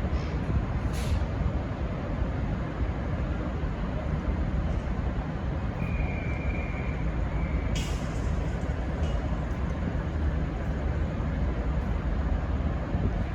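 Diesel railcars of a V/Line VLocity train idling at the platform with a steady low rumble. A short hiss of air comes about a second in. Near the middle a brief high-pitched whine is cut off by a sharper air hiss, typical of air brakes.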